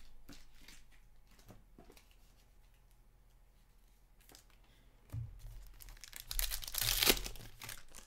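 Foil wrapper of a hockey card pack being torn open and crinkled, a loud rustle in the last two seconds after a short knock about five seconds in.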